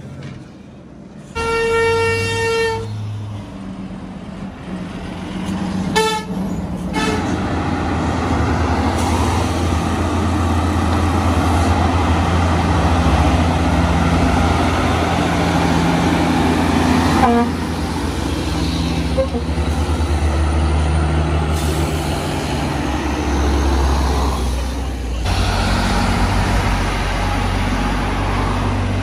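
Dump truck horn sounding one long blast about a second in, then a short toot around six seconds. After that, heavy diesel dump truck engines run hard in a deep, steady drone as the trucks climb the hill.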